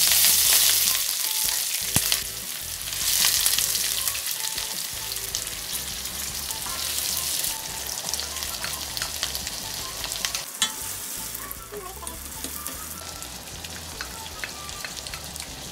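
Chopped onion and other diced ingredients hitting hot oil in a wok and sizzling loudly. The sizzle surges as the onion goes in, swells again about three seconds later, then settles to a steadier frying hiss with scattered clicks of stirring.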